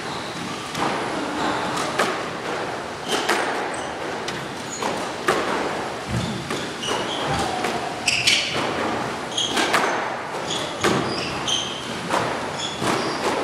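Squash rally: the ball struck by rackets and smacking off the walls in sharp knocks roughly once a second, with short high squeaks of shoes on the wooden court floor between them.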